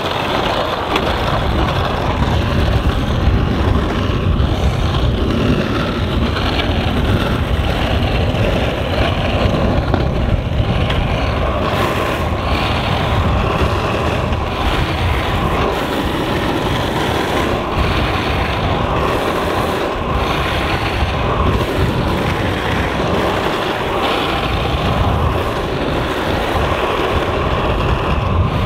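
Board wheels rolling fast down an asphalt street: a loud, steady rumble of urethane wheels on rough pavement.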